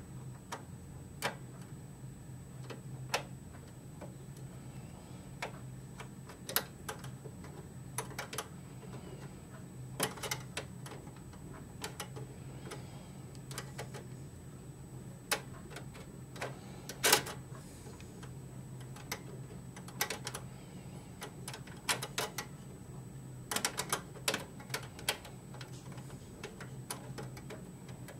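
Irregular small clicks and metallic taps from hands working a metal expansion-slot bracket in an open desktop PC case, over a steady low hum.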